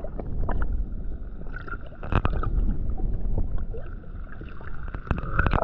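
Water sloshing with a low, uneven rumble and scattered short clicks and knocks.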